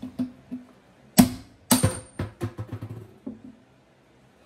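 Hammer striking a socket and extension, a run of sharp metal-on-metal blows driving the worn-out drum bearing out of a Kenmore Elite HE5t washer's tub. The two hardest blows come just over a second in, lighter taps follow, and they stop about three and a half seconds in, with guitar music underneath.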